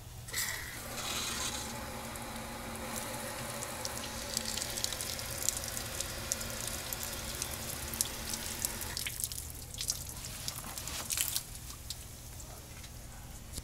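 Water from a garden hose running through a 2011 Nissan Quest's sunroof drain and splashing out under the car, a steady rush with many small drips and splashes: the drain tube now passes water freely. The flow stops about nine seconds in, leaving scattered drips.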